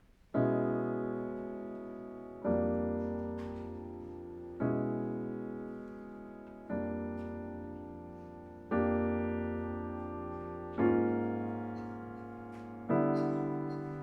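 Piano playing slow chords, seven in all, each struck about every two seconds and left to ring and fade.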